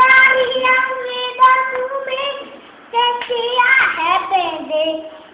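A young girl singing, holding long sung notes, with a brief pause about three seconds in.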